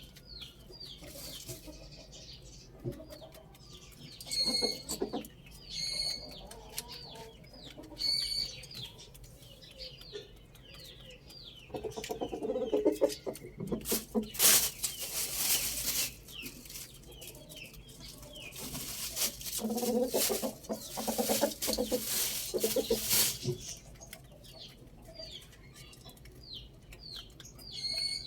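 Roosters and hens: two long crows a few seconds each, with clucking and short high calls between them, over rapid chirping of small birds throughout.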